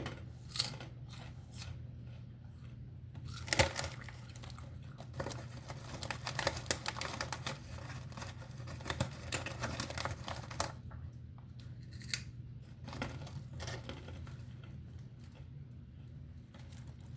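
Crunching of Pringles Mingles puffed snacks being chewed, a crackle of short crisp clicks that thickens into a dense run in the middle, with one sharper crunch early on. A steady low hum lies under it.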